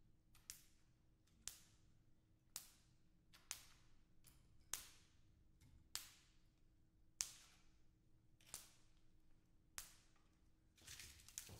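Thin wooden branches whipped sharply through the air, nine even swishes about every 1.2 seconds, then a quicker flurry of several near the end.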